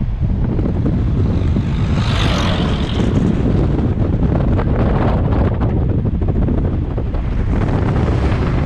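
Wind buffeting the microphone of a camera held out of a moving car's window, over the steady low rumble of the car travelling on the road. A brighter hiss swells briefly about two seconds in.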